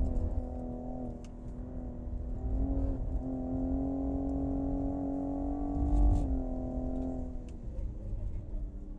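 2020 Cadillac CT5-V's twin-turbo V6 pulling hard on a track lap, its pitch holding and slowly climbing with a brief dip about three seconds in, then dropping about six seconds in as it comes off the throttle.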